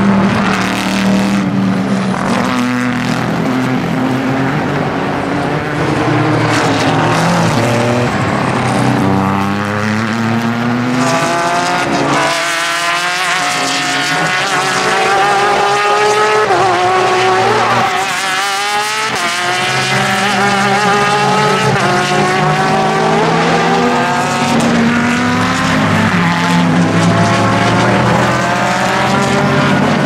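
GT race cars running at speed past the track, one after another, including a Corvette C7.R with its V8 and a Porsche 911 RSR with its flat-six. Engine pitch climbs and drops repeatedly through the gear changes.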